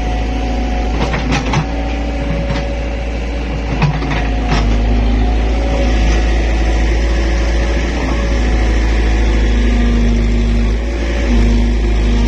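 Excavator's diesel engine running steadily under load, with a whine that shifts in pitch as the hydraulics work and a few sharp metal clanks in the first few seconds.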